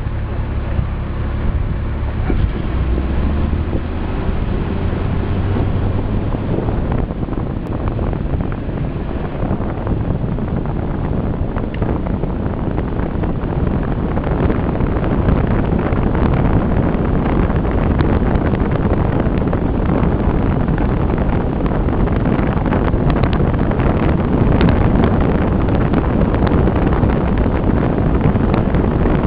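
A car driving at speed, with heavy wind noise buffeting the microphone over its engine and road noise. An engine hum stands out in the first few seconds, then the rush of wind takes over and builds a little.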